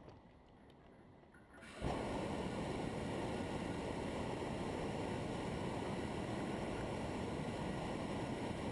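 Hot air balloon's propane burner firing in one long burn. It comes on abruptly about two seconds in as a steady, loud rush and holds there.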